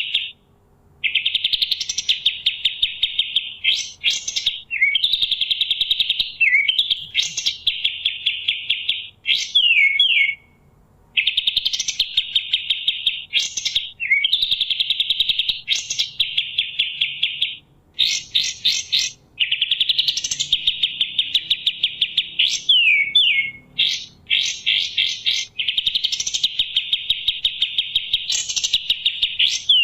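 Kapas tembak songbird singing: long, fast trilled phrases, each ending in a rising flick, with sharp falling notes between them, repeated over and over.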